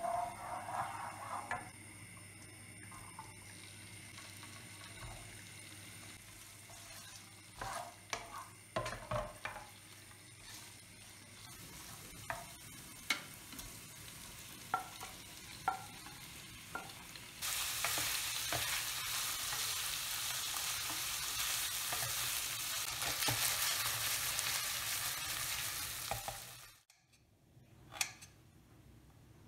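Food frying in a hot pan: a loud, even sizzle starts suddenly a little past halfway and cuts off abruptly near the end. Before it come scattered light clicks and taps of kitchen utensils.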